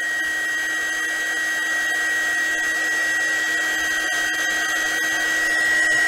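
KAIWEETS KEH01 mini heat gun blowing on its low first setting: the steady rush of air from its nozzle, with a high, even whine from its fan motor.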